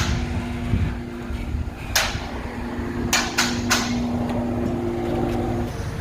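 Muffler-shop work noise: sharp knocks, one about two seconds in and two more a little after three seconds, over a steady machine hum.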